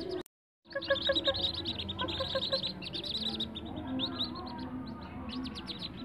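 A brood of whistling duck ducklings peeping continuously, many short, high, downward-sliding peeps overlapping into a busy chorus. The sound cuts out completely for about half a second just after the start.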